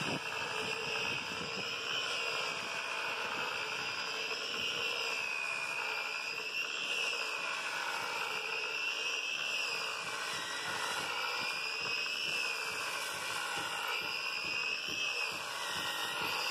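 Corded electric buffer running with its pad pressed against a wooden boat hull, buffing grime off the planks. It gives a steady high motor whine whose pitch wavers slightly up and down every second or two as the pad is worked over the wood.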